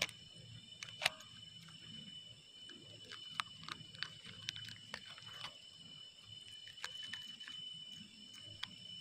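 Quiet outdoor background with a steady high-pitched whine and scattered sharp clicks and taps, the loudest about a second in.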